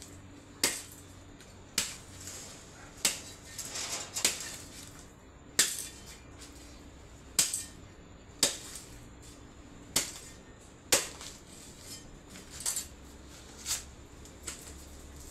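Repeated sharp chopping blows on a dry coconut, about a dozen strikes at roughly one a second with uneven spacing, as the coconut is cut open and husked.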